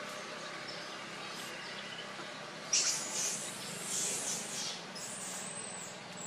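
Birds chirping: a sudden burst of high, quick calls about three seconds in, lasting about two seconds, then a thin high whistle near the end, over a steady background hiss.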